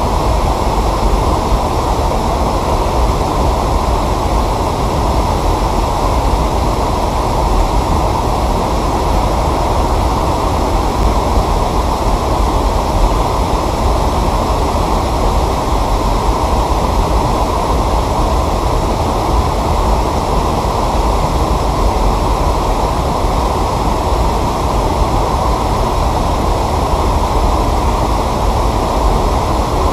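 Steady, even rushing noise with a heavy low rumble and no distinct events.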